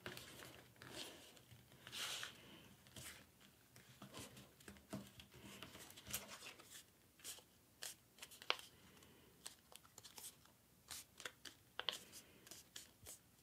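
Faint, scattered rustling and crinkling of a letter-size sheet of paper as hands handle it and press creases into a folded paper airplane.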